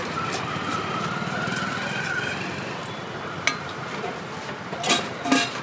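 Roadside traffic noise with a faint high tone that rises slightly over the first two seconds. A few sharp clinks of steel serving vessels and utensils come near the end.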